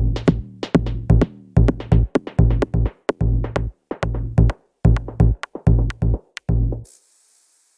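Electronic music: a drum-machine beat with deep bass notes and short, clipped hits, several a second. It cuts off near the end, leaving a faint hiss.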